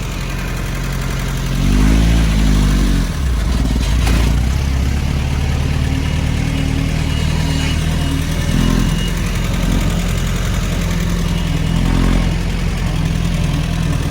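Engine of a freshly restored Jeep running steadily, revved up about two seconds in and blipped a couple more times later, with a sharp click near the four-second mark.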